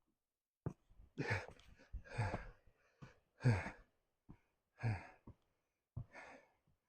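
A person breathing hard, with heavy exhalations about once a second, from the effort of carrying gear uphill, with short knocks between breaths.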